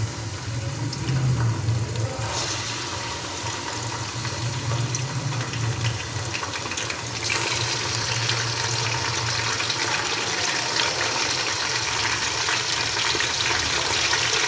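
Beef pieces sizzling in hot oil with fried onions in a cooking pot. The sizzle gets louder about two seconds in and again about seven seconds in as more meat goes in. A steady low hum runs underneath.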